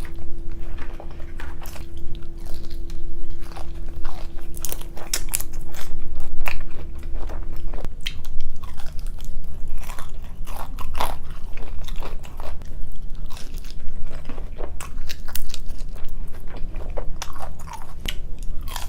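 Close-miked eating of seafood: a steady run of crunching bites, chewing and mouth clicks. A faint steady hum underneath stops about eight seconds in.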